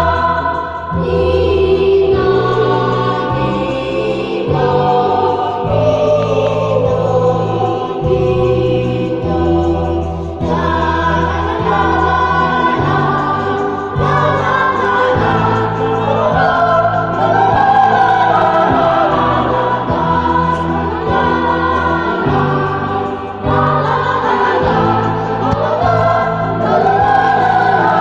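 Children's choir singing a Christmas song into microphones, over keyboard accompaniment whose low notes hold and change in steady steps.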